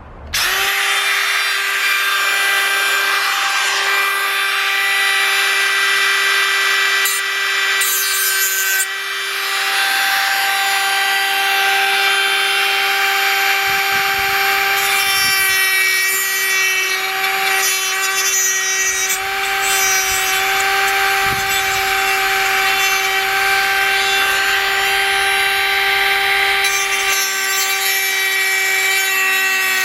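Dremel rotary tool switching on about half a second in and whining steadily at high speed as it cuts into a plastic GoPro 5 housing.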